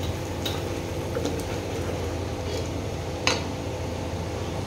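Wooden spatula stirring thick chicken curry masala in an aluminium pot, with light scrapes and a few knocks against the pot, the sharpest about three seconds in, over a steady low hum.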